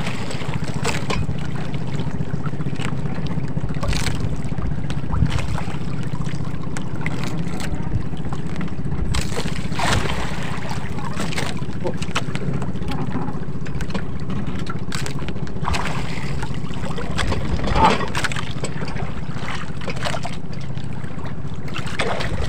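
Motor of an outrigger fishing boat running steadily with a low, even hum, and a few sharp knocks against the hull, the loudest about eighteen seconds in.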